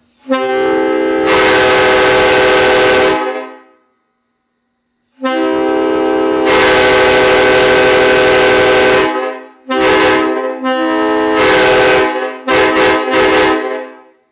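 Five-chime PVC train horn built as a replica of a Nathan K5LLA, blown on compressed air at about 140 PSI, sounding its loud chord. It gives two long blasts of roughly three and four seconds, then several shorter blasts in quick succession.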